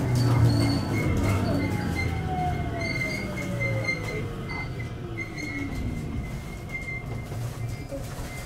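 521 series electric train slowing to a stop, heard from inside the front car. The whine of its traction motors slides down in pitch as it brakes, over the low rumble of the wheels on the rails, with a thin steady high tone above and the sound easing off toward the end.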